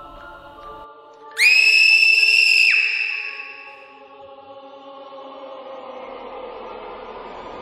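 Soft background music of held notes; about a second and a half in, a loud, high-pitched whistle tone sounds for just over a second and cuts off sharply, then the music slowly swells.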